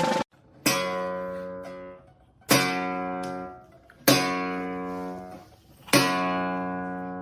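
Background music: acoustic guitar chords, strummed four times at an even slow pace, each left to ring and fade before the next.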